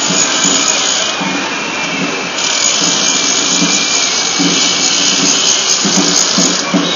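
Crowd of protesters marching: a steady loud hiss with the crowd's voices coming and going underneath.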